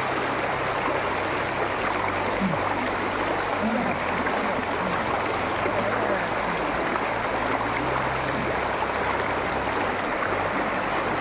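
Steady rush of flowing canal water.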